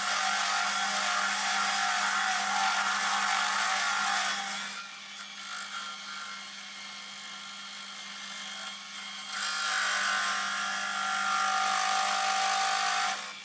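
Metal lathe turning a rough aluminium casting: a steady motor hum under the hissing noise of the tool cutting the aluminium. The cutting noise comes in two stretches, dropping away for a few seconds in between as the tool comes out of the cut, and stops near the end.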